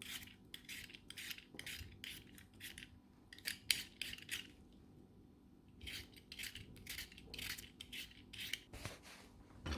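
Vegetable peeler scraping down a raw potato in short, quick strokes, about three a second, with a pause of a second or so midway.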